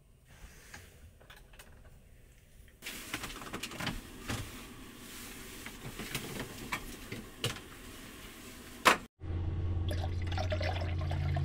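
Water running and pouring into a container, with scattered small clicks and knocks, ending in a sharp click. About nine seconds in, after a sudden break, a steady low hum takes over.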